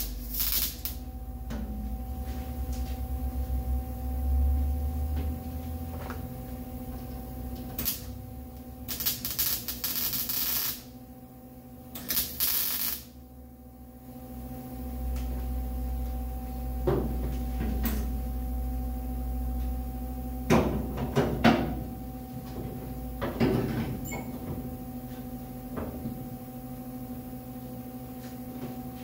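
MIG welder tacking a sheet-metal trunk gasket channel: crackling sputter in several short bursts of one to two seconds in the first half, over a steady electrical hum. Shorter knocks and rattles of clamps and tools being handled follow in the second half.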